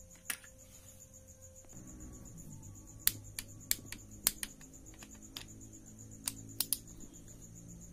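Sharp metallic clicks, scattered and irregular, from a ratchet-head torque wrench being worked on the oil pump's 10 mm bolts. Faint background music comes in about two seconds in.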